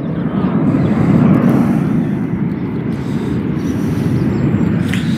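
Jet engines of a military aerobatic formation flying past, a loud, steady low rumble.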